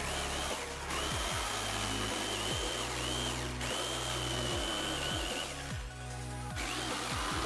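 500-watt DeWalt DW300 jigsaw running and cutting through plywood, with a steady high motor whine. It breaks off abruptly three times, most briefly near 1 s, again near the middle, and for nearly a second about six seconds in.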